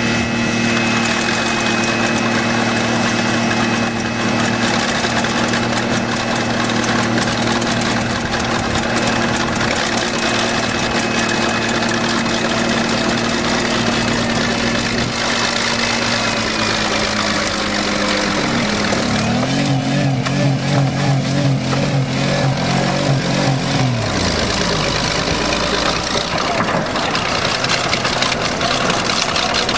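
A car engine running fast and steady with its throttle wedged open by a piece of wood, mixed with a bulldozer's diesel engine. About 19 seconds in, a deeper engine note comes in, wavers for about five seconds, then falls away.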